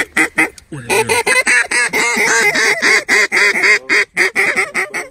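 Duck call blown in a rapid, steady string of loud mallard-hen quacks, about six or seven a second, with a short break near the start.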